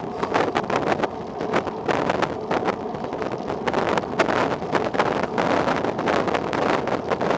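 Wind buffeting the microphone of a camera on a moving bicycle: a gusty, uneven rushing noise that comes in frequent short flare-ups.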